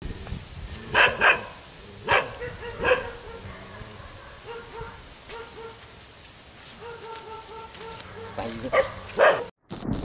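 Dog barking: two sharp barks about a second in, two more around two and three seconds, then a pair near the end, with fainter repeated calls between them. The sound cuts off suddenly just before the end.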